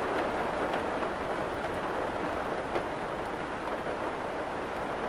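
Heavy rain falling steadily, a dense even hiss with a few faint drops ticking through it.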